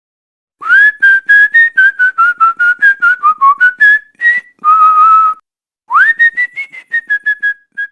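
A person whistling a tune with the lips: a quick string of short notes that step up and down in pitch, one longer held note near the middle, then a note that slides up and more short notes.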